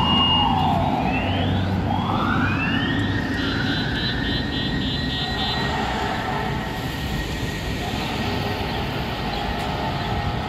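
FDNY ladder truck's sirens sweeping up and down in pitch, with a rapid pulsing tone about three seconds in and the truck's engine rumbling low early on. The sirens grow somewhat fainter toward the end as the truck pulls away.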